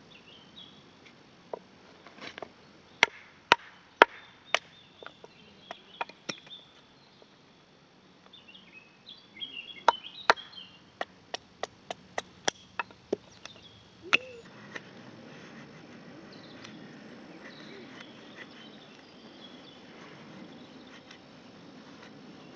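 Sharp wooden chopping strikes in two irregular runs, several blows each, with a pause between them; the strongest blows come early in the first run.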